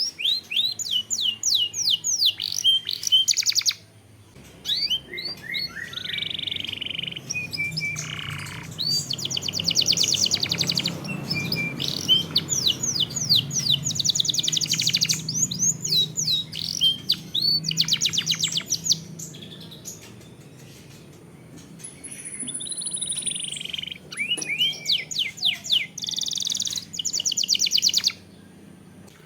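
Domestic canary singing long rolling trills of fast, closely spaced high notes, phrase after phrase, with brief pauses between them.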